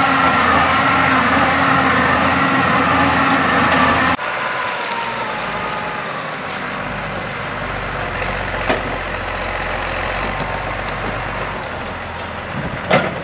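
Tractor engine running steadily while driving a rootsaw that cuts tree roots underground. About four seconds in it changes to a lower, quieter engine hum as the front loader pushes against the tree, and near the end there is a sharp crack as the tree starts to give way.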